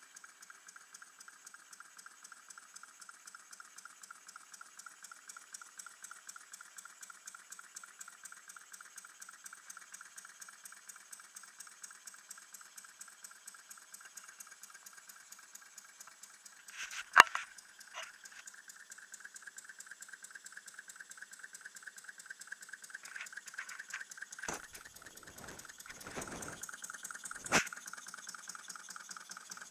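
Small single-cylinder model hot air engine, driven by gas fed through a hose, running steadily with a fast, even ticking beat. A couple of sharp knocks break in, about two-thirds of the way through and again near the end.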